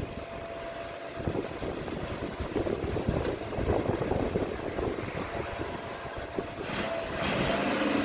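Dump truck's diesel engine running while the tipper bed is hydraulically raised to dump a load of soil, with wind buffeting the microphone. It grows louder about seven seconds in as the engine works harder.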